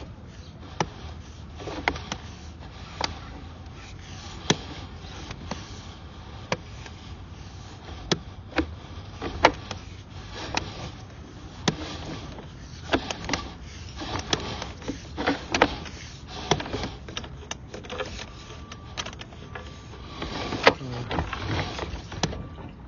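Sewer inspection camera's push cable being fed down a drain pipe: irregular sharp clicks and knocks over a steady low rumble.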